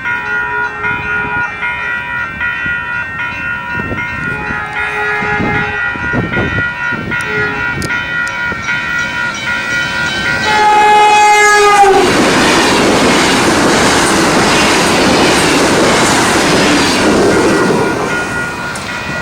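Level-crossing warning bells ringing steadily as an electric Caltrain double-deck train approaches, with short horn sounds between about four and six seconds in. About ten seconds in comes a longer horn blast that drops in pitch as the train reaches the crossing. The train then passes through for about six seconds, the loudest part, with wheel and rail noise, while the bells ring on.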